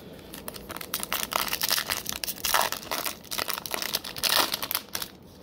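Foil wrapper of a 2021 Topps Finest baseball card pack being torn open and crinkled by hand: a quick run of crinkling rustles, with louder bursts about two and a half and four seconds in.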